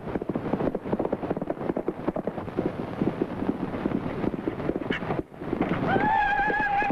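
Horse hooves galloping in a rapid, dense clatter that cuts off about five seconds in. A steady, slightly wavering high tone begins near the end.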